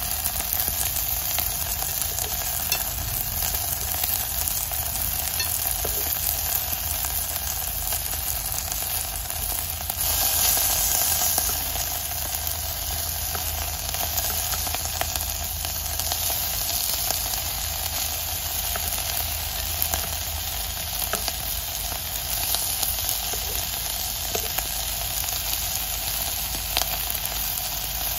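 Tuyo (dried salted fish) sizzling in hot oil in an electric casserole pot, a steady hiss with scattered small pops and clicks, growing briefly louder about ten seconds in. A metal spoon stirs and turns the fish against the pot.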